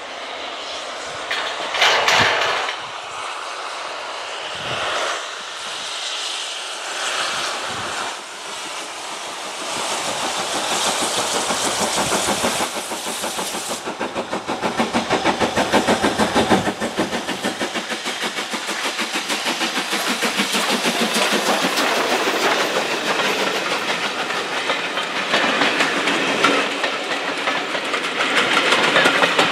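Steam-hauled passenger train approaching and passing close by. Its sound builds from about ten seconds in and settles into a steady, fast rhythmic clatter of carriage wheels on the rails as the coaches roll past.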